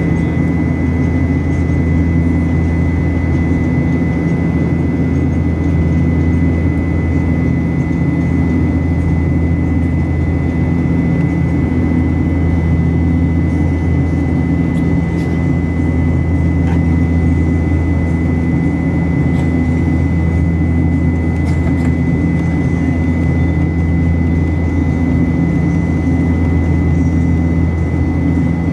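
Steady airliner cabin noise from jet engines in flight: a loud, even hum with a thin, steady high whine on top.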